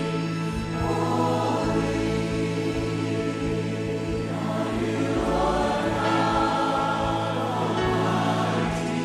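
Christian worship song: a choir singing long held notes over steady, low sustained accompaniment.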